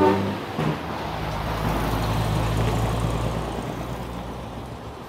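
Big rig's diesel engine running, its sound slowly fading as the truck moves away; a horn note cuts off just at the start.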